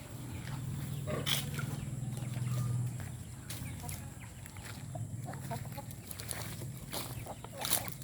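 Native chickens clucking, with a low steady hum over the first few seconds and a couple of sharp knocks, one about a second in and one near the end.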